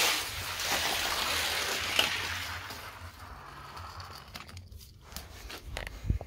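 Two toy race cars rolling down the track: a loud, even rolling hiss that fades away over about three seconds, followed by a few light clicks.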